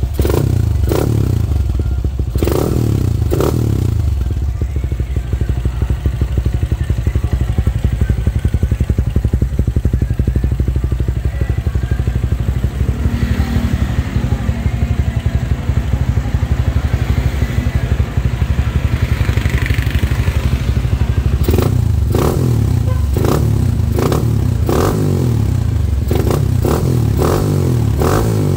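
Motorcycle with a 177cc engine and a bottle-type aftermarket exhaust running loudly. Several quick throttle blips come near the start, then a steadier stretch, then a rapid run of blips over the last several seconds.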